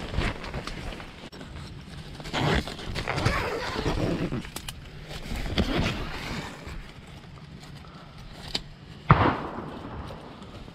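Rustling and bumping, then about nine seconds in a single sharp gunshot with a short echoing tail: another hunter has just fired at a deer.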